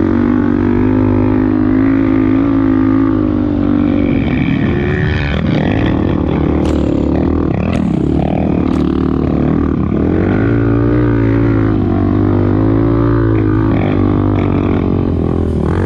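Dirt bike engine running steadily, its revs wavering up and down in the middle, with a few short sharp knocks about seven to nine seconds in.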